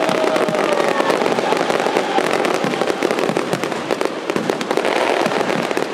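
Aerial fireworks crackling densely, many rapid pops running together, with a falling whistle from a whistling shell at the start.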